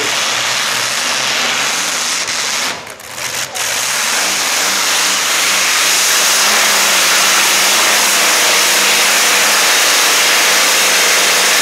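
Modified pulling tractor powered by a radial aircraft engine running loud at high throttle. It dips briefly about three seconds in, wavers as it picks up again, then holds a steady full-power note as the tractor pulls down the track.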